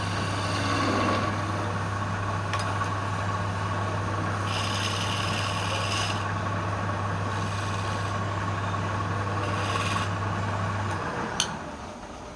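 Wood lathe motor humming steadily while a tool or abrasive rubs against the spinning wood in several rasping bursts. Near the end the hum stops, with a sharp click.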